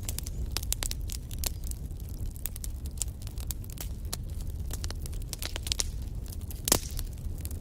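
Wood fire burning in a fireplace: logs crackling with frequent sharp pops over a low, steady rumble of flames. One louder pop comes near the end.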